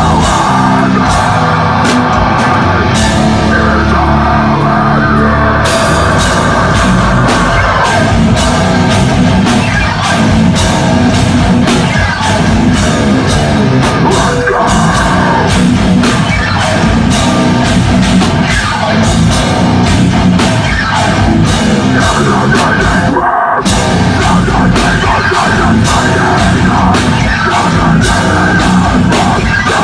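Deathcore band playing live: heavy distorted guitars, pounding drum kit with cymbals and screamed vocals, at full volume. The band breaks off for an instant about three quarters of the way through, then crashes back in.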